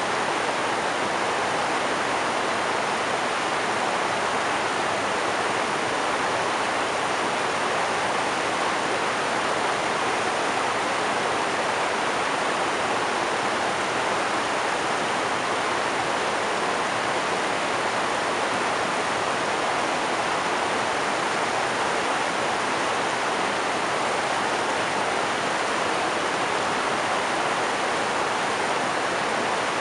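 River rapids rushing steadily over rocks, an even, unbroken roar of white water.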